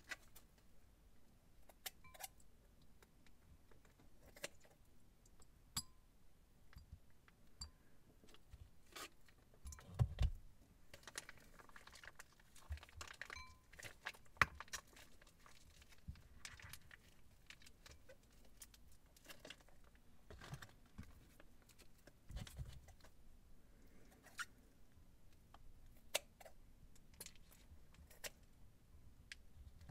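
Faint handling of plastic piping bags: crinkling and squeezing as glue is pressed out of a bag into a glass bowl, with scattered small clicks and taps and a couple of soft thumps. Scissors snip the tip off another piping bag near the end.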